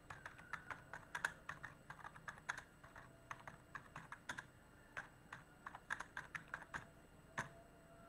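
Typing on a computer keyboard: irregular runs of key clicks, a few strokes a second, with short pauses between runs.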